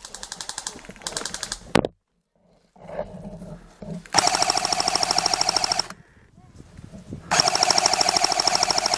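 Airsoft gun firing on full auto: a short, lighter burst in the first two seconds, then two long, loud bursts of very rapid, even shots, one around the middle and one near the end.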